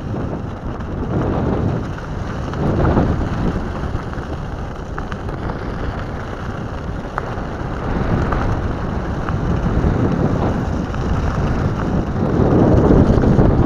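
Pneumatic off-road tyres of an electric all-terrain skateboard rolling over dirt and gravel: a continuous rumbling crunch with scattered small clicks of stones, louder near the end, with wind buffeting the microphone.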